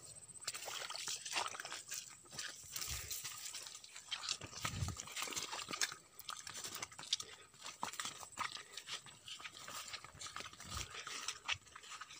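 Footsteps on a wet, muddy path through a rice paddy, with rice leaves brushing and rustling: a run of irregular soft clicks, crackles and squelches, over a faint steady high-pitched whine, with a few low thumps.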